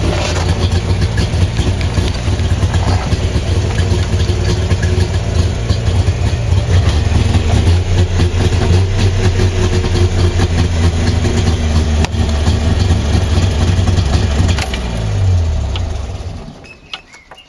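FSM Syrena 105's three-cylinder two-stroke engine running steadily, heard from inside the car's cabin, then dying away and stopping about sixteen seconds in.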